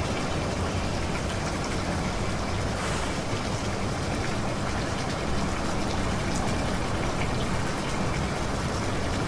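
Steady rushing background noise with a low hum under it, unchanging throughout.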